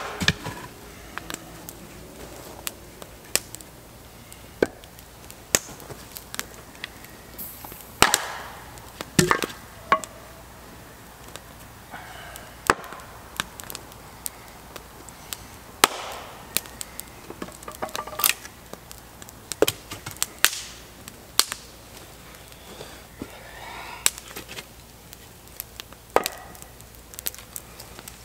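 An axe chopping wood: sharp, irregular strikes, roughly one a second.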